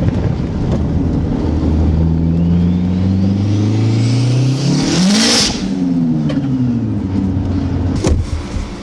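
Turbocharged Neon engine pulling hard in second gear, heard from inside the cabin. The revs climb for about four seconds with a faint rising turbo whistle above them. A brief loud hiss comes at the peak, then the revs fall as the throttle is lifted.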